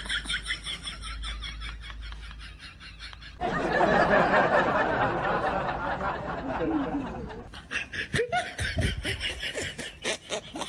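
Snickering laughter in quick repeated chuckles. About three and a half seconds in it cuts abruptly to a denser, rougher noise for about four seconds, then the chuckling returns.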